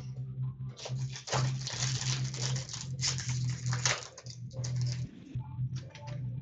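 Rustling and crinkling of hockey card packs and packaging being handled and opened, in dense irregular bursts that thin out near the end, over a steady low hum.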